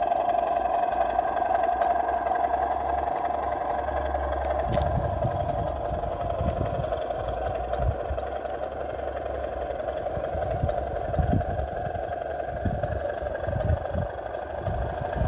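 Diesel engine sound from the DCC sound decoder of an O gauge model of Class 25 diesel D5195, playing through the loco's small speaker as it runs steadily under way. Irregular low thuds join in from about five seconds in.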